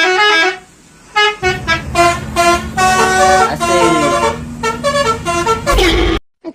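Bus telolet horn, a Basuri multi-tone horn, playing its tune of short stepped notes: a brief phrase at the start, then after a short gap a longer run of notes over a low steady hum, cut off suddenly near the end.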